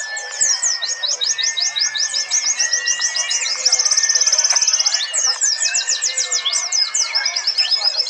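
Several white-eyes (pleci, Zosterops) singing at once in a contest chorus: dense, rapid high chirping phrases, with a fast even trill about a second long near the middle and long level whistled notes lower down.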